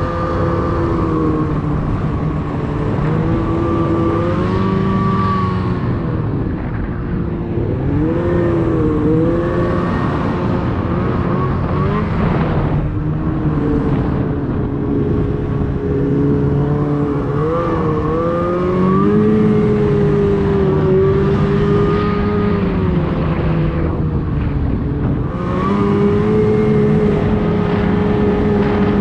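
Ski-Doo Summit XP snowmobile's two-stroke engine running under throttle, its pitch rising and falling repeatedly with the throttle, with brief let-offs near the middle and again near the end.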